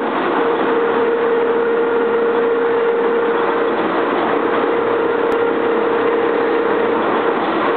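Double-column vertical turret lathe (C52 series) running while it turns a large metal ring: a steady mechanical drone with a constant whine running through it.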